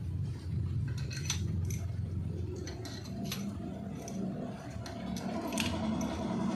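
Scattered sharp metal clinks and taps of hand tools and engine parts during the fitting of a cylinder head, over a steady low rumble.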